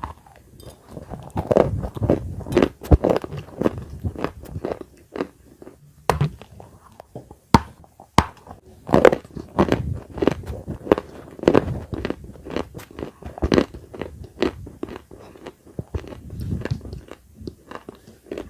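Close-miked biting and chewing of dry edible clay (khawa), with irregular sharp crunches and crackles a few times a second.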